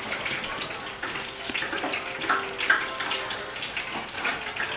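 Deep fryer sizzling and crackling steadily as battered Oreos cook in hot oil. The sizzle has not yet died down, so they are still cooking.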